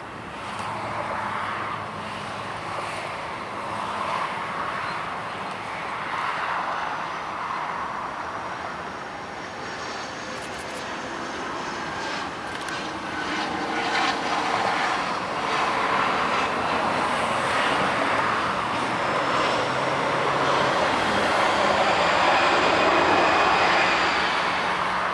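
Jet airliner's engines passing: a rushing noise with a faint high whine, growing steadily louder and peaking near the end.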